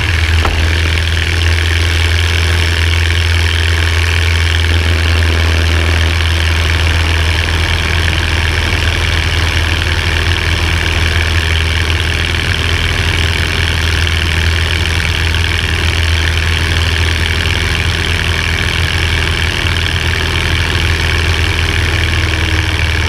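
Light aircraft's engine and propeller running steadily at high power through takeoff and climb, with wind rushing past the outside-mounted microphone.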